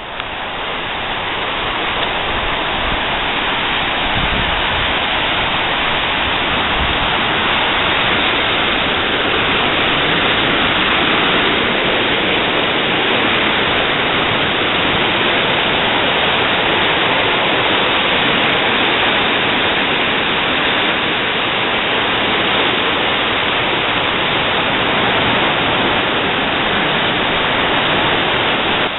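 Devil's Track River whitewater rapids rushing in a loud, steady wash of water noise that swells over the first second or two and then holds even.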